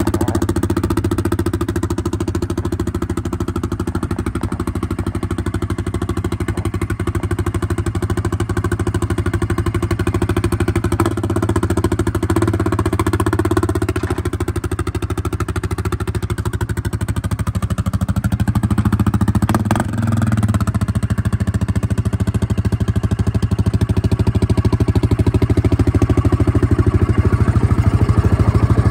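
ATV engine running steadily, its pitch rising briefly about two-thirds of the way through and then dropping.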